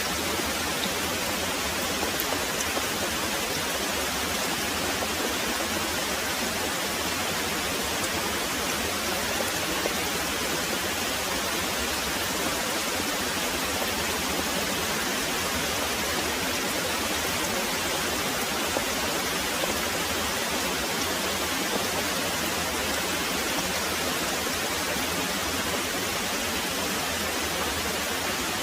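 Very heavy rain pouring steadily, a dense, even hiss with no let-up and no thunder.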